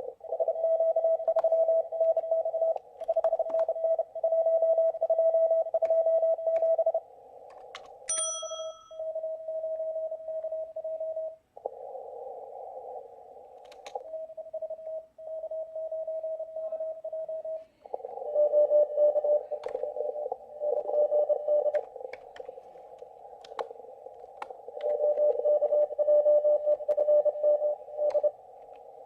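Morse code signals on an amateur radio receiver in a CW contest, heard through a laptop speaker: a keyed mid-pitched tone over a narrow band of hiss. The tone shifts slightly lower about eighteen seconds in. There is a brief higher beep about eight seconds in, and a few scattered clicks.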